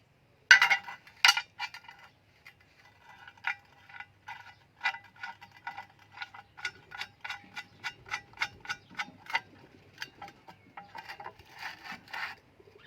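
Metal being struck: a series of sharp, ringing metallic taps, two or three a second, with two louder hits about half a second and a second in.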